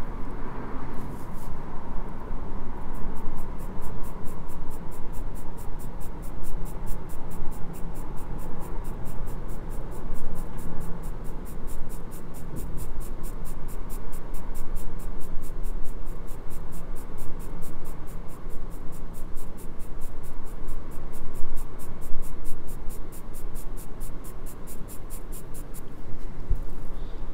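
Graphite pencil scratching over drawing paper in quick, uneven shading strokes.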